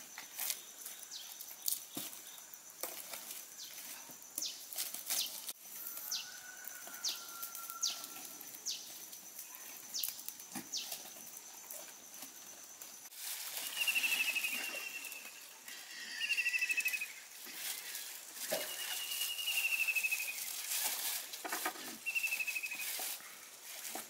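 Wood fire crackling and clicking as its embers are poked with tongs, under birdsong. In the first half come sharp falling whistles; from about halfway, repeated short buzzy calls rise over a growing hiss.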